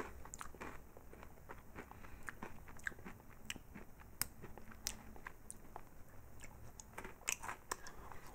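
Crunchy chocolate-coated corn-cereal pretzel snack being chewed: faint, irregular crunches and clicks.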